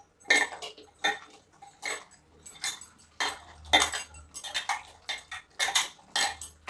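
A hand mixing raw chicken pieces with curd, spice paste and mustard oil in a stainless steel bowl: irregular wet squishes and clinks against the bowl, about two a second.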